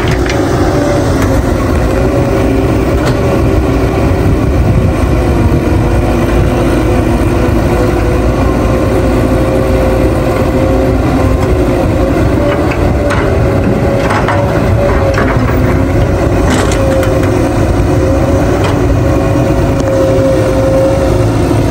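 Cat 312B hydraulic excavator's diesel engine running steadily under load while it dumps soil into a dump truck and swings back. A few sharp knocks come through about two-thirds of the way in.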